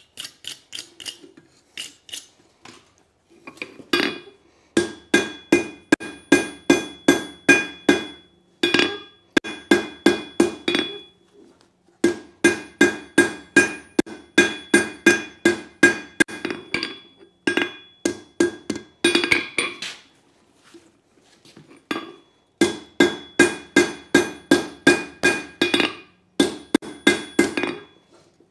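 Hand hammer striking red-hot leaf-spring steel on an anvil, shaping the flat blade end of a wood chisel. The blows come in runs of about four a second with short pauses between runs, and each one rings brightly off the anvil.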